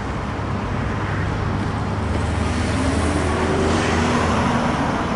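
Road traffic: cars driving past, their tyre and engine noise swelling to a peak about three and a half seconds in.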